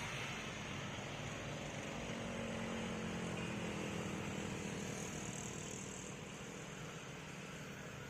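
Mitsubishi Fuso Canter light truck's diesel engine pulling up a hill, a steady running hum that slowly fades in the last couple of seconds as the truck moves away.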